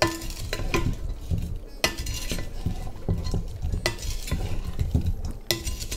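A wooden spatula stirring chunks of corn on the cob with butter in a ceramic-lined pot: the cob pieces tumble and knock against each other and the pot, with a sharper ringing clack against the pot about every two seconds.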